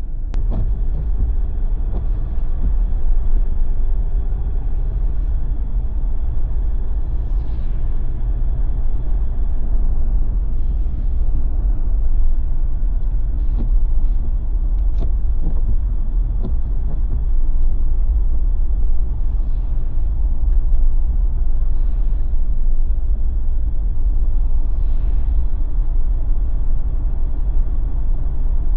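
Steady low rumble of a Jeep's engine and tyres while driving on a winter road, with a few faint ticks scattered through it.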